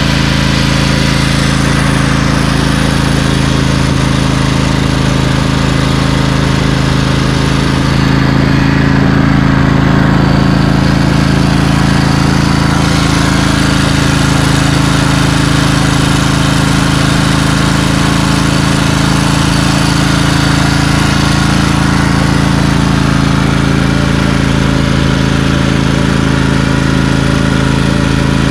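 Briggs & Stratton 20 hp V-twin engine in a Craftsman LT2000 lawn tractor running steadily while the tractor drives along, a little louder about eight to twelve seconds in.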